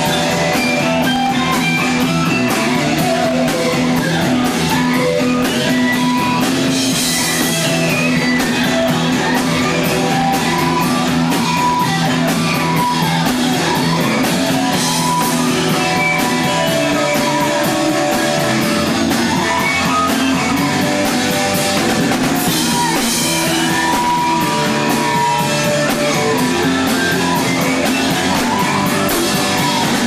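Live rock band playing, with electric guitars, electric bass and a drum kit.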